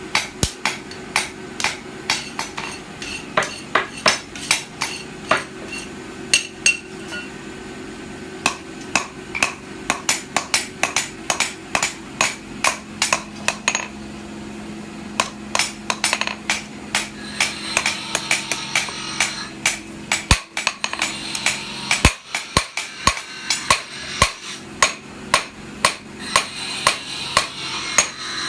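Blacksmith's hammer striking hot sword steel on an anvil, forging a Thai dhab blade: sharp ringing blows, about three a second, with a steady low hum beneath.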